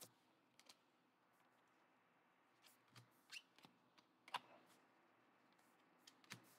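Near silence, with a few faint, brief clicks of thin cardboard trading cards being slid through the hands.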